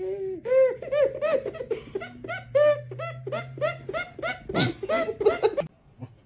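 A baby laughing: a long string of short giggles, each rising and falling in pitch, about three a second, cutting off abruptly near the end.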